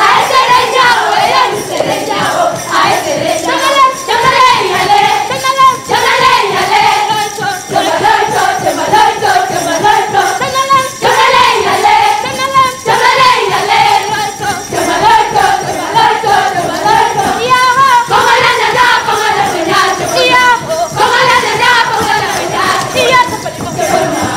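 A group of performers singing a Pokot dance song together over rhythmic jingling percussion, in steady time throughout.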